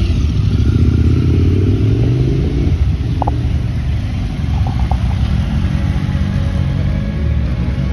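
Several adventure-touring motorcycles pulling away one after another and passing close by, their engines revving up through the low gears.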